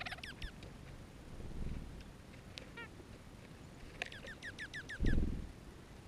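Small songbirds calling at a seed pile. There are a few short falling chirps at the start, then a quick run of about eight short falling notes about four seconds in. A low thump about five seconds in is the loudest sound.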